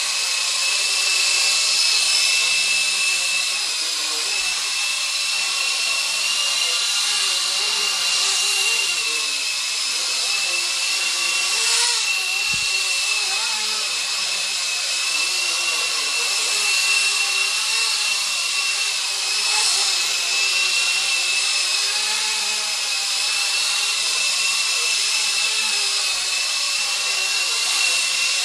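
Blade 120 SR micro RC helicopter in flight: a steady high-pitched whine from its electric motors and spinning rotor, the pitch wavering slightly as the throttle changes.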